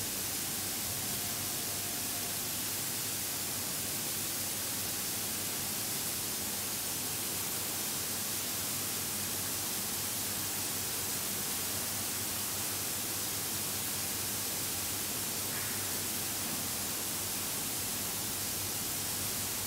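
Steady, even electrical hiss of corona discharge from a rubber-insulated bypass jumper energised at 20 kV during a one-minute insulation withstand test.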